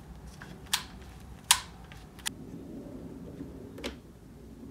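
One-handed trigger bar clamp being squeezed shut on a glued-up wood blank: a few sharp clicks, the loudest about one and a half seconds in, over a faint low hum.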